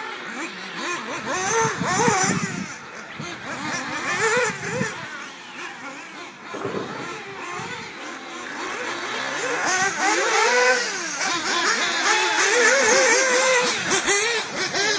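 1/8-scale RC off-road buggies racing, several small engines revving at once. Their pitch rises and falls over and over as the buggies accelerate and slow around the track, growing louder in the second half.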